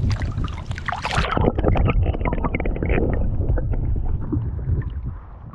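Wind buffeting the microphone with a steady low rumble, over water splashing and dripping as a trout is released by hand into the river. The splashing is busiest in the first second or so and thins towards the end.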